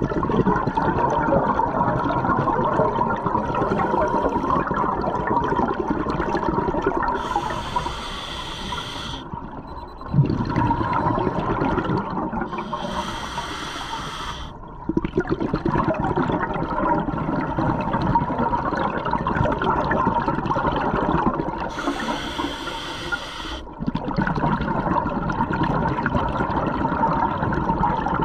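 Scuba diver breathing through an open-circuit regulator underwater: long bubbling exhalations from the exhaust valve, broken three times by a short hissing inhalation through the regulator.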